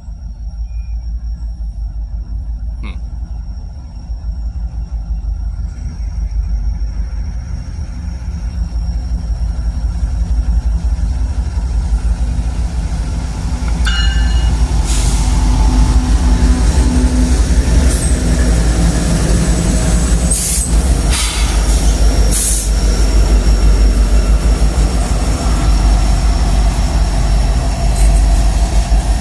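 A train rolling past on the rails, a steady low rumble of wheels and cars that grows louder about halfway through, with sharp clanks now and then and a thin high whine over it.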